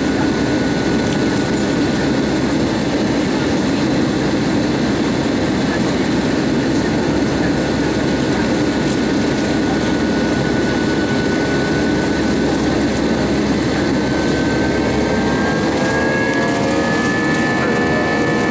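Cabin noise of an Airbus A320-232 heard from a window seat: a steady roar from its IAE V2527 jet engines. A whine rises slowly in pitch from about four seconds before the end.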